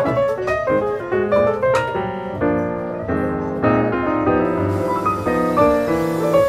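Background piano music, a stream of notes.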